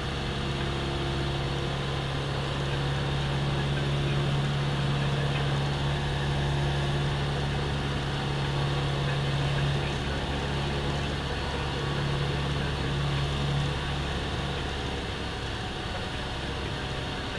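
Cessna 172M's four-cylinder Lycoming O-320 engine and propeller droning steadily, heard from inside the cockpit, over a steady rushing hiss. The drone eases off slightly about three-quarters of the way through.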